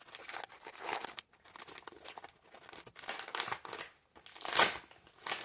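Thin plastic packaging being cut open with scissors and handled: a run of irregular crinkles and tearing rustles, the loudest near the end.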